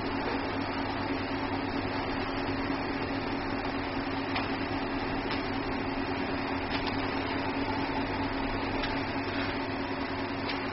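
Pellet stove running: a steady fan hum with a constant low tone, and a few faint ticks scattered through it.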